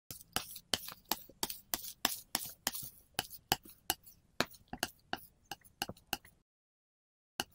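A quick series of sharp taps or clicks, about three a second, stopping suddenly about six and a half seconds in, then a single tap just before the end.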